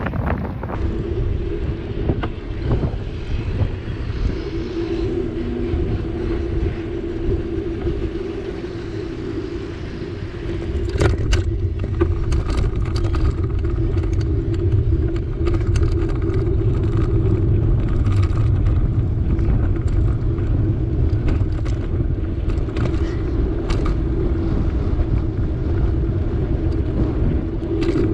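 Bicycle rolling along a tarmac road, heard through a bike-mounted camera: a steady low rumble of tyres and wind with a constant hum and scattered light clicks and rattles, getting louder about ten seconds in.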